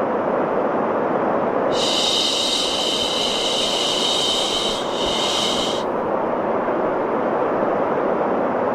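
Steady white noise with a long human "shhh" shush laid over it, starting a little under two seconds in and lasting about four seconds.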